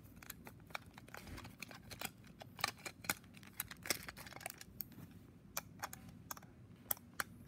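Irregular light clicks and taps of a battery-powered plastic toy train being handled while a small screwdriver works the screw of its battery cover back in.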